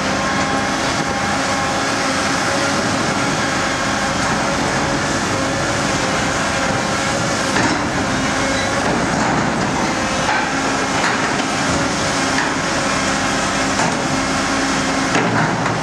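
Volvo EC 950F excavator's diesel engine running steadily under load while its hydraulic scrap shear bites into and crushes sheet-metal scrap. There are a few sharper metallic crunches and clanks, one about halfway through and one near the end.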